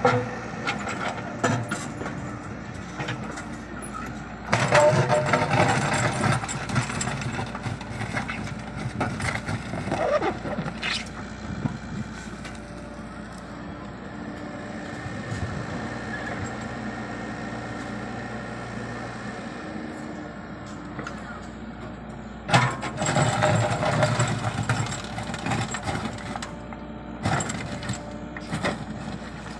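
Komatsu PC75UU excavator's diesel engine running steadily while it works, rising to louder, rougher stretches twice, about four seconds in and again near the end.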